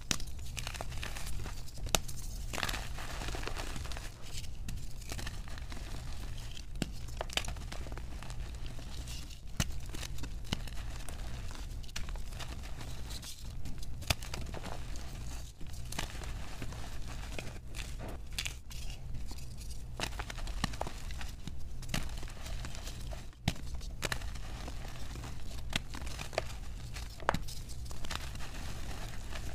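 Coloured gym chalk blocks being crushed and crumbled by hand: a continuous, irregular crunching and crackling, with sharp snaps as pieces break apart.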